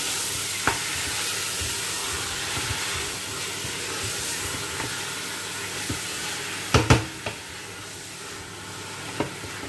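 Lamb pieces with onion and garlic sizzling in hot oil in a stainless steel pot, a steady frying hiss. A wooden spoon stirs the meat, knocking the pot a couple of times about seven seconds in.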